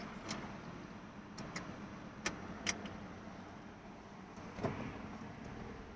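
Quiet car interior: a low steady hum with a few faint, scattered clicks and taps.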